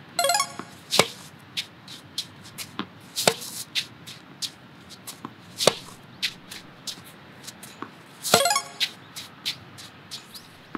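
Tennis balls hit with a racket on forehand groundstrokes off fed balls, a sharp pop every two to three seconds, with lighter knocks of balls bouncing on the court between.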